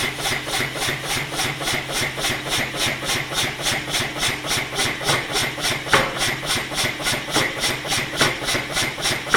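Massey 2 cwt self-contained pneumatic power hammer running in a steady rhythm of about four to five strokes a second, with the ram coming down to make light, controlled touches on thin aluminium wire. Its big-end and small-end bearings are freshly rebushed, and it runs smoothly without knocking.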